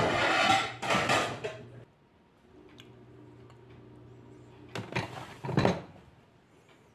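Dishes clattering at a stainless-steel sink for about two seconds, then a faint steady hum, and two short knocks about five seconds in as plates are handled in a plastic dish drainer.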